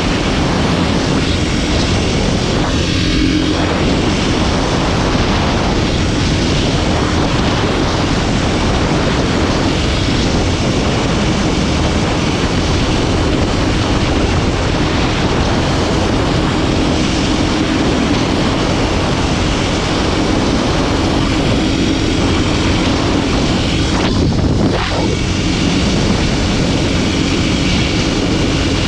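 Kawasaki KLX300SM supermoto's single-cylinder four-stroke engine running steadily while riding at cruising speed, its note briefly dropping and shifting near the end.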